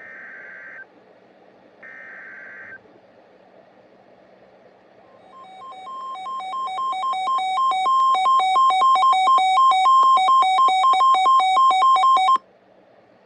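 Emergency Alert System data header: two short bursts of screechy digital warble, the end of the three-fold SAME header that opens an alert. A couple of seconds later a loud alert alarm of quick beeps alternating between two pitches swells in volume, then cuts off abruptly, announcing the warning that follows.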